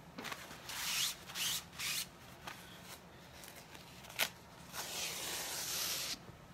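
Hands rubbing a sticky plastic silk-screen stencil against a fluffy microfiber towel and peeling it back off, a series of brushing, crinkling rubs with a sharp click about four seconds in and a longer rub near the end.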